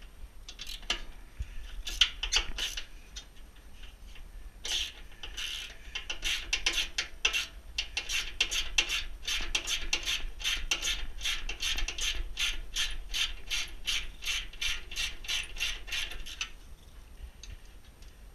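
Socket ratchet wrench clicking as it backs out a bolt holding the pellet stove's exhaust blower: a few separate strokes at first, then a steady run of clicks, about three a second, that stops near the end.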